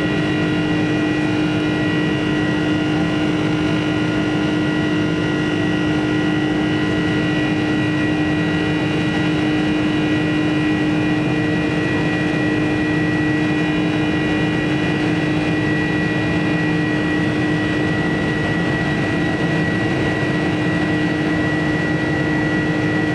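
Cabin noise inside a Boeing 747-400 climbing after takeoff, heard from a window seat over the wing: the GE CF6-80C2 turbofans run steadily at climb power, a constant rush with a low hum and a thin high whine held level throughout.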